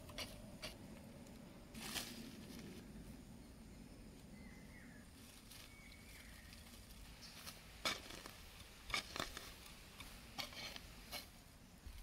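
Hoe blade striking dry, crumbly soil near the start, then scattered soft scrapes and crunches of soil and leaves being handled while a sapling is set in the hole and the earth pressed around it.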